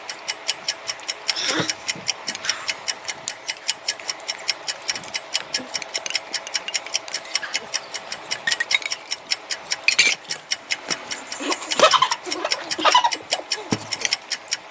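Fast, even clock-like ticking, about five to six ticks a second, like a countdown timer. A few short, sharp sounds break over it now and then.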